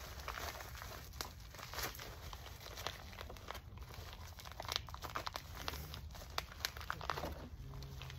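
Packing material crinkling and rustling as hands dig through a cardboard shipping box, in short, irregular crackles.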